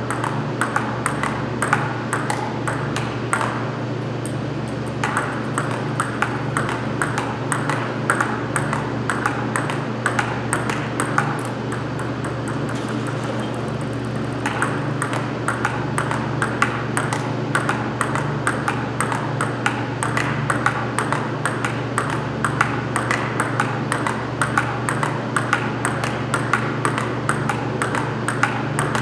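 Table tennis ball clicking against paddles and table in quick, continuous succession, with brief lulls about four seconds in and near the middle. A steady low hum runs underneath.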